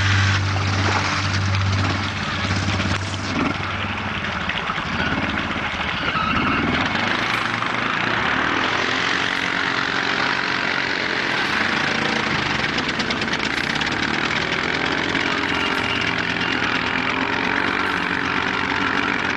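ATV engine running steadily, its pitch shifting slightly as the rider works the throttle.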